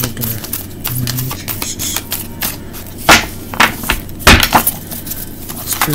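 A tarot deck being shuffled by hand: a run of quick card clicks and slaps, with two louder sharp knocks about three and four seconds in.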